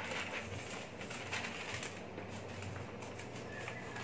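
Steady low hum and room noise, with faint scattered ticks.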